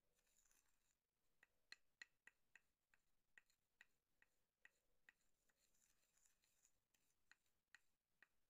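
Wire whisk stirring a fruit mixture in a saucepan, its wires tapping the side of the pan in faint, quick clicks, about three a second, becoming sparser after about five seconds.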